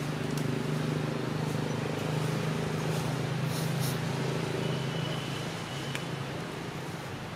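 Steady low mechanical hum, like an engine running, under a background hiss; it eases off about six seconds in.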